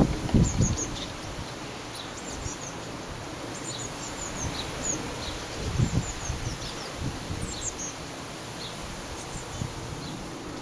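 Blue tits calling from the nest box, a scatter of short, high, thin chirps through the whole stretch. Gusty wind buffets the microphone with low rumbles, loudest at the very start and again about six seconds in.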